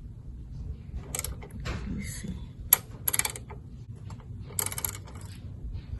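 Ratchet clicking in about five short runs as the T-30 Torx screws holding the plastic underbody cover are backed out.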